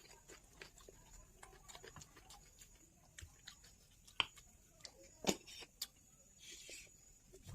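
Quiet eating sounds: soft chewing and small wet mouth clicks while eating goat curry, with a sharper click about four seconds in and a louder one about a second later, and a short hiss near the end.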